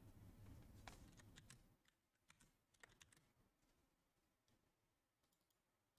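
Near silence with a few faint, scattered clicks; a low hum drops away about two seconds in.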